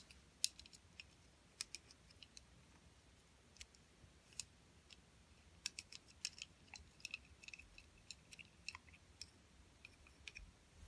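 Near silence, broken by sparse faint clicks and small taps of small objects being handled.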